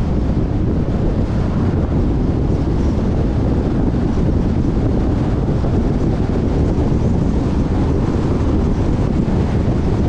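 Steady wind rushing over the microphone and road noise from a car driving at speed on the highway.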